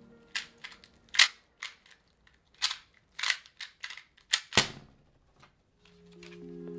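A plastic 2x2 speed cube being turned fast by hand: a quick irregular run of sharp clicks. About four and a half seconds in comes one louder, heavier thump as the solve ends. Lo-fi music fades back in near the end.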